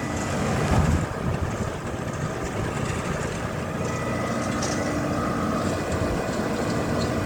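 A 1979 Mitsubishi window air conditioner runs steadily with its newly fitted Bristol reciprocating compressor: a constant low mechanical hum under fan and airflow noise. A brief louder bump comes about a second in.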